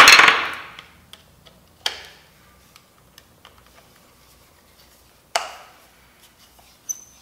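Screwdriver working a hidden screw out of a small taillight bracket, with a clatter of handling at the start, then a few scattered sharp clicks of the tool on the bracket.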